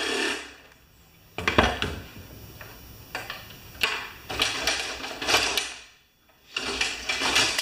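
Metal parts of a Craftsman snowblower clanking, knocking and rattling as the handlebar assembly is worked loose from the body. The sound is an irregular string of sharp knocks and scraping rattles.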